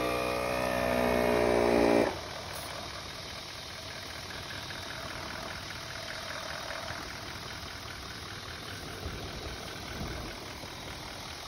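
Portable 12-volt air compressor wired to the Landcruiser's battery, running as it pumps the tyres back up to road pressure after sand driving. A steady, even hum breaks off about two seconds in and gives way to a quieter, rougher running sound.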